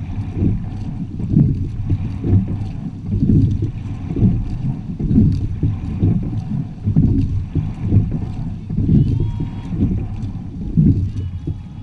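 A sculling quad under way: water rushing along the hull and wind buffeting the bow-mounted camera's microphone, in a low rumble that swells and fades about once a second, with faint clicks.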